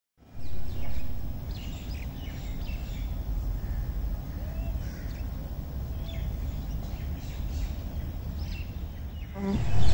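Birds chirping in short scattered calls over a steady low outdoor rumble, which swells louder in the first second.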